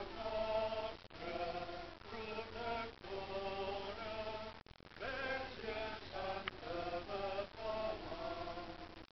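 Voices singing a liturgical chant or hymn during Mass, held notes in short phrases.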